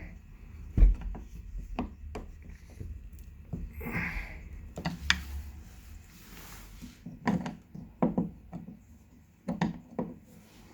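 Screwdriver and a tight plastic hinge cap on a uPVC door being worked loose: scattered clicks, knocks and scraping, with a heavier knock about a second in.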